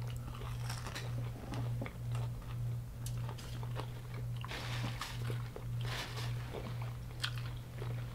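Close-up crunching and chewing of crispy deep-fried food, bite after bite in irregular crackles, over a steady low hum.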